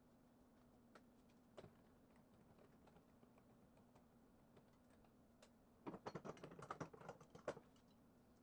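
A faint steady hum with a quick flurry of light clicks, like typing, lasting under two seconds about six seconds in, and a couple of single clicks earlier; otherwise near silence.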